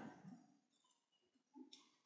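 Near silence, with one faint computer-mouse click near the end.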